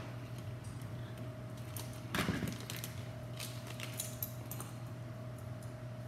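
Hands handling small drone parts and a clear plastic piece: a short rustle about two seconds in, then scattered small clicks and crinkles, over a steady low hum.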